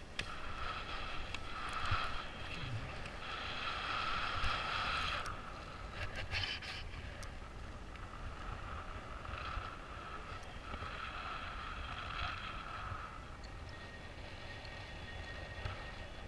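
Wind buffeting the microphone of a camera carried on a paraglider in flight: a steady low rumble, with a higher rushing band that swells and fades several times.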